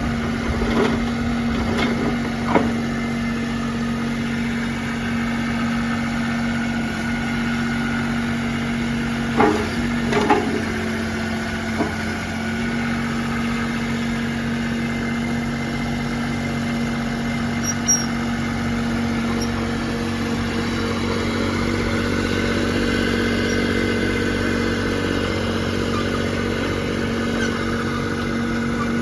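Toro TX1000 mini skid steer's 24.8 HP Kubota diesel engine running steadily, with a few short knocks, the loudest around ten seconds in.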